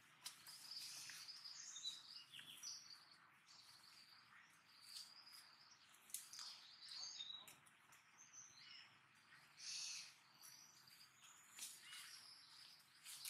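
Faint, short high-pitched chirps and squeaks coming every second or so, over a quiet hiss, with a few soft clicks or rustles.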